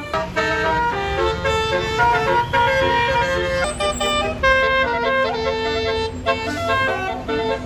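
Basuri telolet musical bus horn playing a quick tune, its notes changing every fraction of a second, over a bus engine's low rumble.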